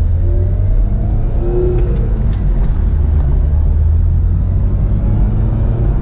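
Supercharged 2.0-litre LSJ four-cylinder of a Cobalt SS pulling under light throttle, inside the cabin with a steady low road and engine rumble. A faint whine rises in pitch over the first two seconds as it comes into boost.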